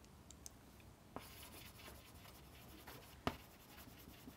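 Chalk writing on a blackboard: a faint scratching, with a couple of sharp taps as the chalk strikes the board.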